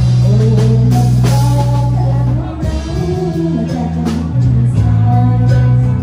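Dance music with a singer, heavy steady bass notes and a regular beat, played loud over a PA loudspeaker.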